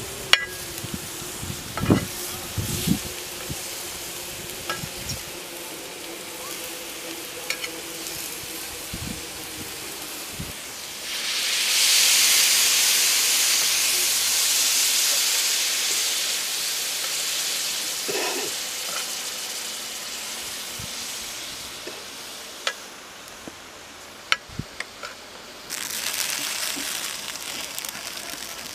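Chicken pieces frying in a shallow iron pan over a wood fire, stirred with a slotted metal ladle: scattered light clicks of the ladle against the pan, then about eleven seconds in a loud sizzle starts suddenly and slowly dies down, and a second sizzle starts near the end.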